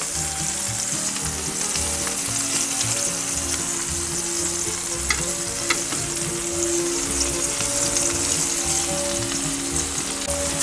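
Lamb burger patties sizzling steadily on a hot steel plancha plate on a gas grill, with a couple of light clicks about halfway through.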